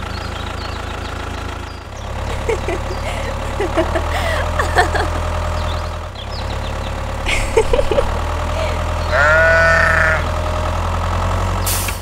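Steady low rumble of a tractor engine running, dipping briefly about two and six seconds in. A sheep bleats once, about a second long, near the nine-second mark.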